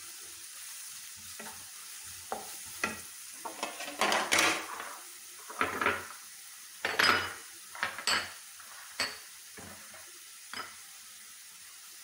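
Chopped onions frying in oil in a nonstick pan with a low, steady sizzle. A wooden spatula stirs and scrapes them in irregular strokes, the loudest about four and seven seconds in.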